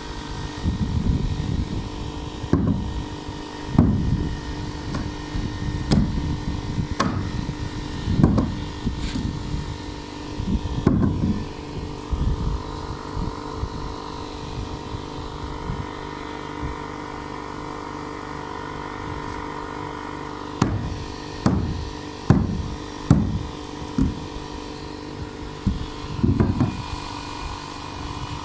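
Sledgehammer blows on the edge of a tongue-and-groove plywood subfloor sheet, knocking it tight into the groove of the neighbouring sheet: a series of separate thumps in two runs, with a pause of several seconds between them. A steady hum runs underneath.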